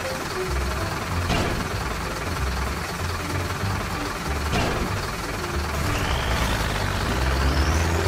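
Animated heavy vehicle's engine sound effect, a steady rumble as a crawler crane drives down a trailer ramp. Two sharp hits come about one and a half and four and a half seconds in, and a rising whine starts about six seconds in.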